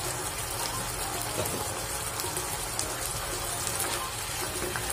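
Pork in sauce simmering and sizzling in a wok, a steady bubbling hiss.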